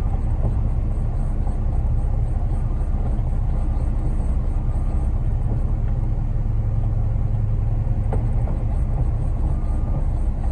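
Concrete mixer truck's diesel engine running steadily with a low rumble while the drum turns during the pour. A single short click about eight seconds in.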